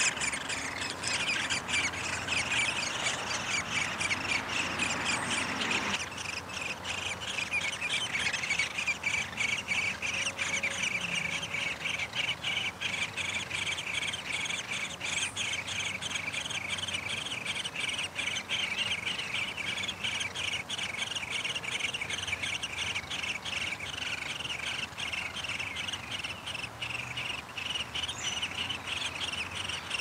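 Downy woodpecker nestlings begging: a continuous, rapid, high chirping that keeps up without a break. For the first six seconds a broad rushing noise lies under it and stops abruptly.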